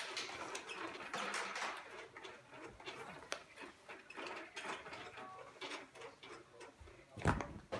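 Baby bouncer seat on its wire frame, rocking and rustling in a steady rhythm about once a second as the baby kicks it into motion, with a louder bump near the end.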